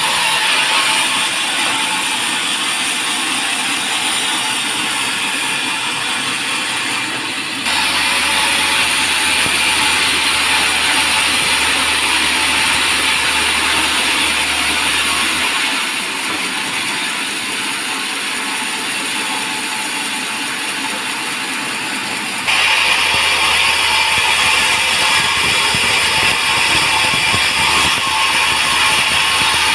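Band sawmill running and cutting a teak log: a loud, steady rasping noise of the blade going through the wood. The tone and level change abruptly three times.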